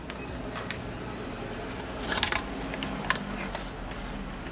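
Light clicks and taps of small metal tools and a circuit board being handled on the bench, a few scattered knocks with the loudest cluster about two seconds in and another sharp click about a second later, over a steady low hum.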